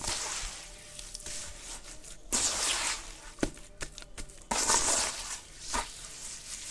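Lumps of red dirt crumbling and breaking apart on a floor: several crunchy, hissing bursts with sharp cracks between them, the loudest about two and a half seconds in and again near five seconds.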